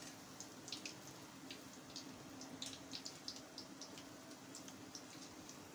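Hot oil crackling faintly with scattered small pops around lentil fritters (mung and urad dal baray) deep-frying in a karahi, over a faint steady low hum.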